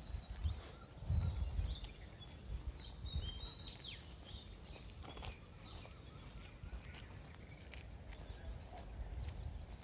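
Birds calling in a forest: many short, high whistled notes and quick downward-sweeping chirps, over a low rumbling noise that swells about a second in.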